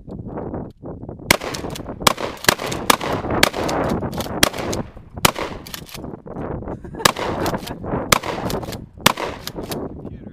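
Rapid gunfire at close range: a long string of sharp shots, often two or three a fraction of a second apart, with short pauses between the strings. The shooting stops about a second before the end.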